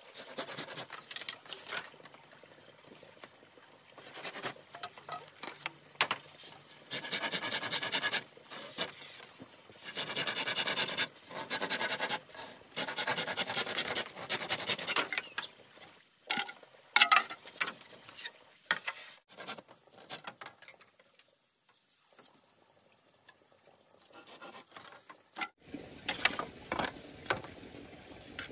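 Hand work on bamboo: repeated bursts of scraping, one to two seconds each, with scattered clicks and knocks. Near the end the sound changes suddenly to a steady hiss with a thin high tone.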